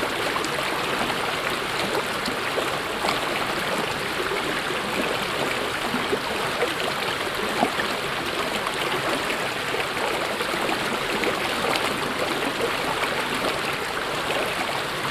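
Mountain stream flowing over rocks: a steady rush of water with small splashes and gurgles scattered through it.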